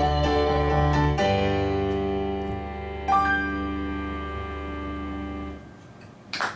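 A band's closing chords, led by piano or keyboard, sustained and fading, with a final high note about halfway through. The music cuts off about a second before the end, and audience applause starts right at the close.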